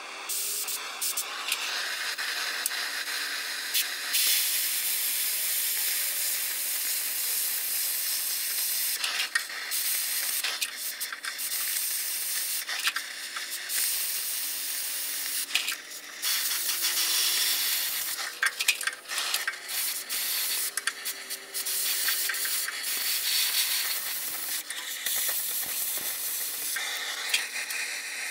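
Oxy-acetylene cutting torch hissing as it cuts through the steel bumper, with sharp crackles as the molten metal blows out. The hiss starts about half a second in and breaks off briefly several times.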